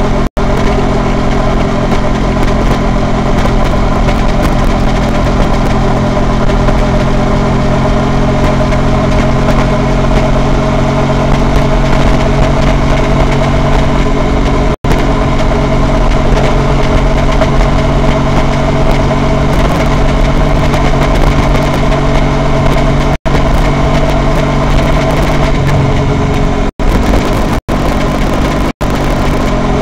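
Honda VT250F's V-twin engine running at a steady cruise while the motorcycle rides along. The sound cuts out for an instant six times, three of them close together near the end.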